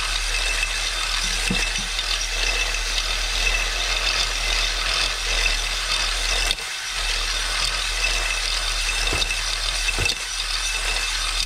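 A drill spins a spring-loaded cylinder hone inside a Ski-Doo snowmobile cylinder. The lubricated hone stones grind steadily on the bore, with a steady high whine, and the sound dips briefly about halfway through. This is honing: roughening the cylinder wall into a cross-hatch so that new piston rings can seat.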